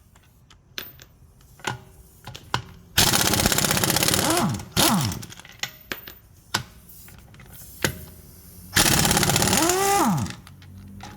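Power impact wrench hammering wheel bolts loose in two long runs, each winding down in falling pitch as the trigger is released, with a few short clicks and knocks between them as the bolts come out.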